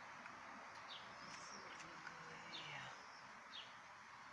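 Faint, scattered chirps of small songbirds, a handful of short, high, falling notes, over a steady soft hiss.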